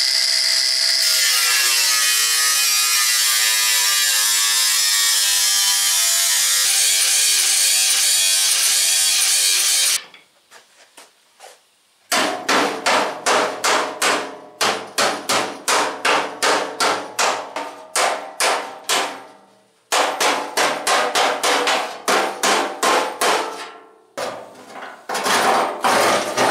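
Angle grinder with a cutting disc slicing relief cuts into the steel 1932 Ford firewall, running steadily for about ten seconds before it cuts off. After a pause comes a quick series of hammer blows on the sheet steel, about three or four a second, in two runs with a short break, as the firewall is knocked into place.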